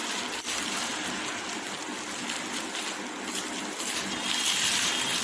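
Rustling and crinkling of packaging as a gift box of firecrackers is opened, with a small click about half a second in.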